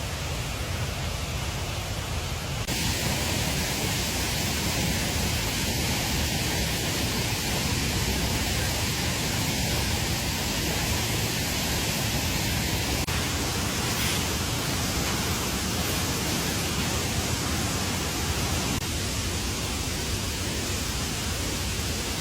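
Steady rushing of water, an even hiss with no distinct events, which grows abruptly louder and brighter about three seconds in.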